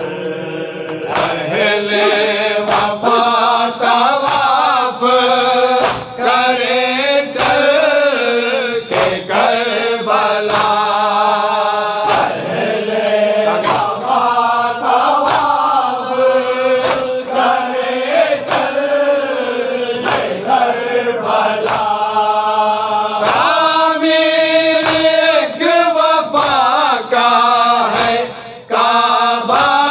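A group of men chanting an Urdu nauha (Shia lament) in unison, with short sharp slaps about once a second from palms beating their chests (matam).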